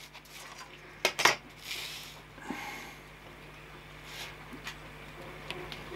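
Sharpened point of a pair of dividers scraping as it scores a circular groove into PVC Foamex board, in short scratchy strokes worked around the circle a bit at a time. Two sharp clicks come about a second in.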